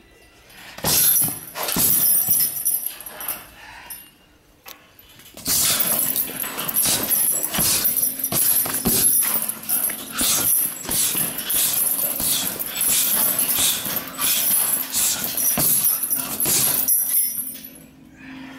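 Gloved punches and kicks landing on a long leather banana bag: a few strikes, a short lull, then a rapid flurry of blows lasting about ten seconds before it eases off.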